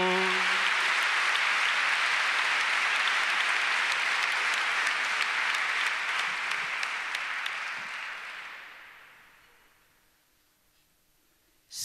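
Audience applause after a sung bertso verse. The clapping stays level for about seven seconds, then dies away to near silence.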